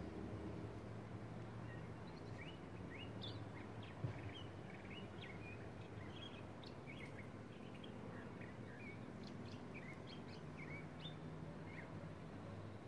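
Faint chirps and twitters of small birds, many short calls scattered through, over a low steady hum, with one sharp click about four seconds in.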